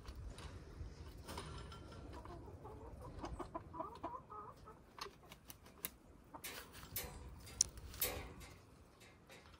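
Hens clucking softly a few seconds in. After that come a series of sharp clicks and rattles from the wire mesh of a cage and a plastic water bottle being fitted to it.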